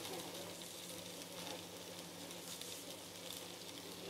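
Boneless chicken pieces and shredded carrots frying in a wok, a faint steady sizzle with a low hum underneath.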